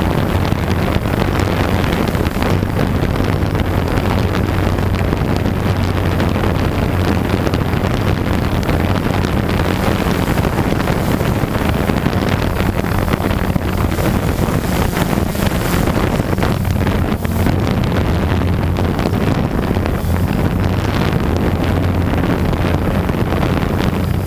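Blade 350 QX quadcopter's brushless motors and propellers buzzing with a steady low hum in flight, heard from its onboard camera, with wind rushing over the microphone.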